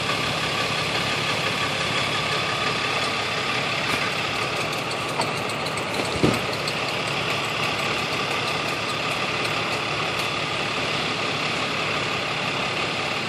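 Heavy truck engine idling steadily, most likely the tow truck's, with one short thump about six seconds in.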